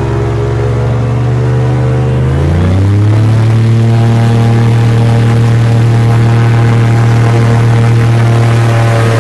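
V8 airboat engine and propeller running steadily, then revving up about two and a half seconds in and holding at the higher speed.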